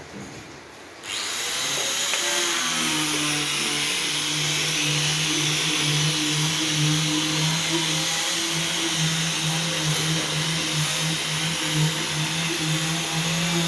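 Bottle steam-sterilizing machine switching on about a second in and then running steadily: a strong hiss over a steady motor hum.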